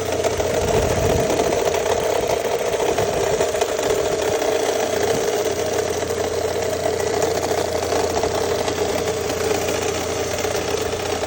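An engine idling steadily, with the knocking noise it is being recorded for.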